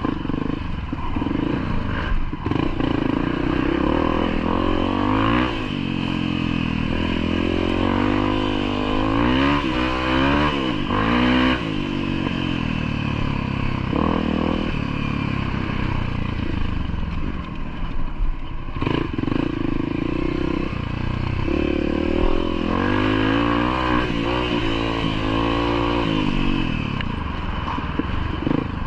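Off-road motorcycle engine running on a trail, its revs rising and falling again and again, with a few sharp knocks along the way.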